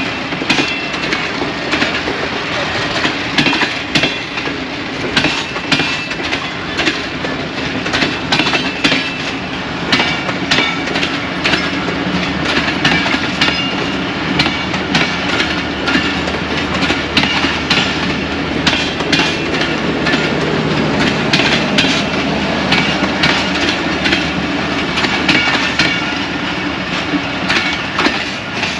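Passenger railway coaches rolling slowly past close by, their wheels clicking and clacking irregularly over rail joints and points as the train pulls out. A steady low drone builds underneath in the second half.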